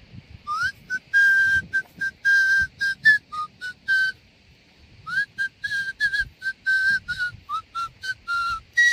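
A person whistling a short tune: a run of brief held notes in two phrases, some sliding up into the note, ending on a long falling slide.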